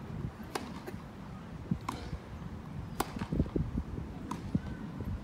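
A grass-court tennis rally: tennis balls struck by racquets and bouncing, a string of sharp pops about once a second, over low crowd noise, with a few dull thumps near the middle.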